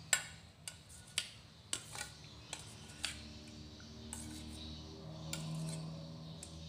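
Metal spoon clinking and scraping against a stainless steel bowl while stirring tofu cubes in beaten egg: a string of irregular sharp clicks over the first three seconds, then softer stirring. A faint steady hum comes in under it about four seconds in.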